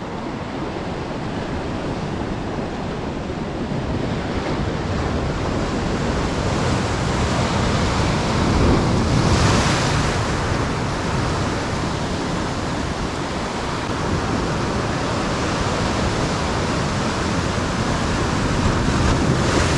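Sea surf washing steadily against the shore, with wind buffeting the microphone; a louder wave breaks about halfway through.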